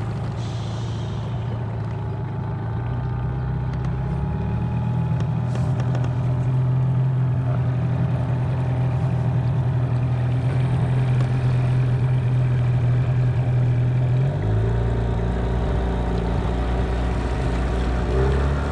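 Motorboat engine running steadily underway, its note changing about fourteen seconds in.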